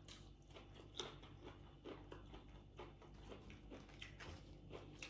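Faint chewing of food by mouth, with soft crisp clicks from the bites about once a second.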